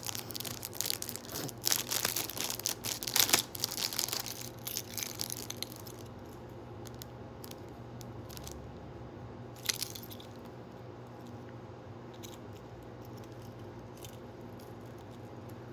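Crinkly plastic packaging being handled and opened around a keychain. The crackling is dense for about the first four seconds, then thins to scattered small clicks and rustles, with one louder click near ten seconds in.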